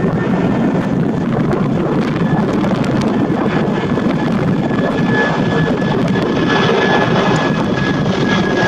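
Airbus A330-200 twin-engine airliner climbing out overhead after takeoff: a steady rush of jet engine noise, with a faint whine that grows clearer and slightly louder toward the end.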